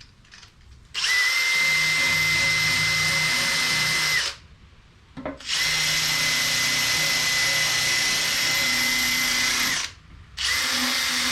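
A power-driven wire wheel spinning against a Weiand aluminium valve cover to scrub it clean, with a steady whine. It runs in three bursts: about three seconds, then about four seconds, then a short one near the end.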